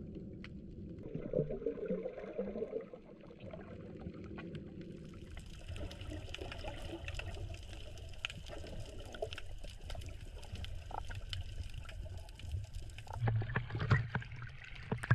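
Water heard through an action camera: muffled underwater gurgling and sloshing with many small scattered clicks, then louder splashing as a snorkeler swims at the surface near the end.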